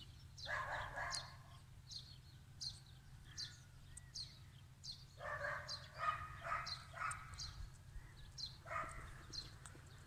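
A dog barking: once about half a second in, a quick run of four barks around five to seven seconds, and once more near nine seconds. Small birds chirp in short high calls throughout.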